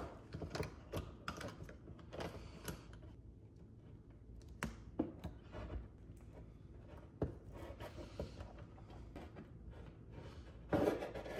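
Faint handling noises from the wires of a four-wire stove power cord being worked by hand at a metal receptacle box: scattered clicks, taps and rubbing as the insulation is stripped. Near the end there is a louder burst of handling noise.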